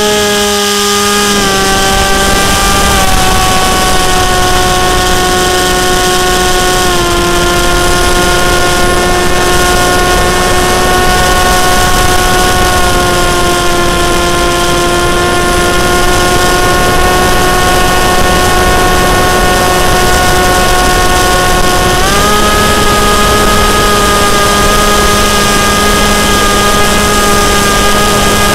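Model flying wing's motor and propeller, heard from the onboard camera: a loud, steady whine over rushing air. The pitch drops in steps over the first several seconds, then rises about three-quarters of the way through as the throttle changes.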